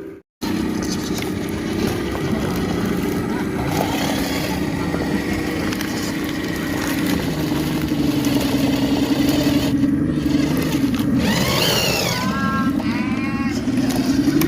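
Electric motor of an RC off-road truck whining steadily as it drives, its pitch drifting up and down with the throttle. There is a moment of silence just after the start, and a few short falling whistle-like sounds near the end.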